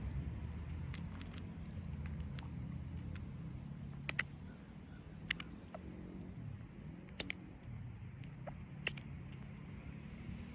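Baby eastern chipmunk making about a dozen sharp, irregular clicks, a couple of them doubled, over a steady low rumble.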